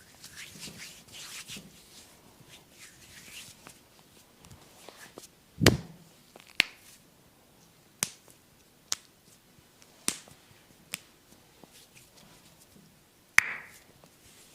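Hand massage on oiled skin: soft rubbing at first, then about seven sharp snaps about a second or so apart, the first the loudest.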